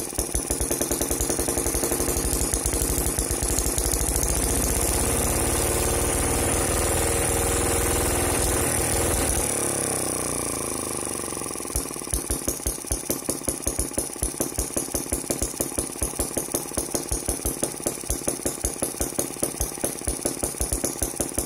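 Modified Chinese M12 miniature petrol engine running fast and evenly, then slowing at about nine or ten seconds in to a slow, steady idle of about four firing beats a second as it is throttled back.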